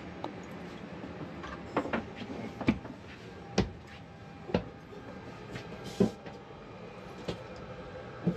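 Footsteps knocking on a narrow stairway, about one step a second, over a steady low cabin hum.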